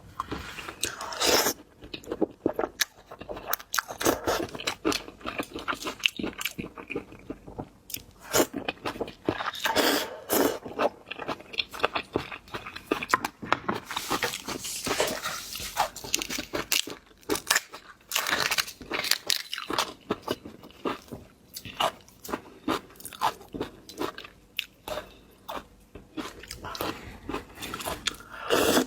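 Close-up eating sounds: biting and chewing food with many sharp crunches and crackles.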